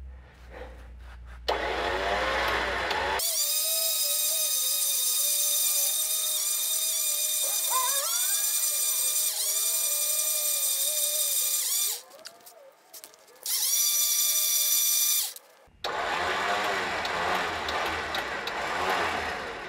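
Electric winch motor running under power, whining steadily as it spools the line onto the drum to tension it. It runs in two stretches with a short stop about twelve seconds in, with a rougher, noisier running sound near the start and again near the end.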